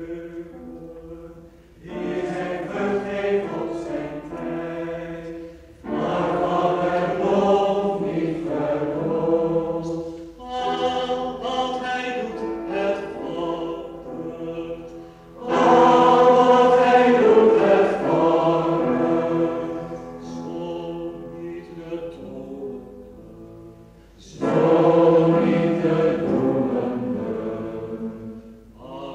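Choir singing a slow piece in several long, held phrases separated by short breaks.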